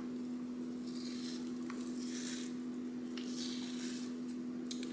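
Skin being peeled by hand off a raw salmon fillet: soft, wet squishing and tearing in several short spells, over a steady low hum.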